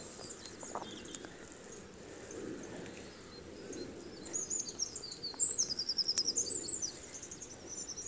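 A small songbird singing a high, twittering phrase with quick trills about halfway through, over a faint steady rumble of background noise.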